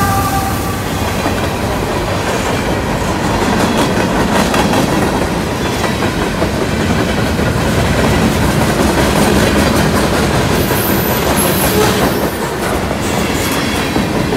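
CSX freight train passing close by: the diesel locomotive, then a string of freight cars, making a steady loud rumble with the clickety-clack of wheels over rail joints. The last of the locomotive's horn dies away in the first half-second.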